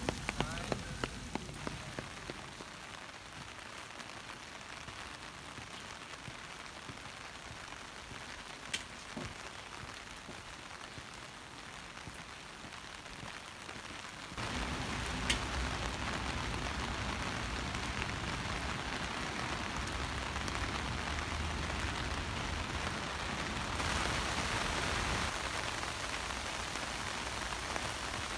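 Heavy rain falling steadily, with a few sharp ticks of single drops; the rain gets suddenly louder and fuller about halfway through.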